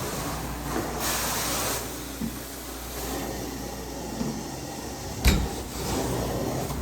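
Carpet cleaning equipment running steadily with a hiss that swells and fades in stretches, and a single sharp knock about five seconds in.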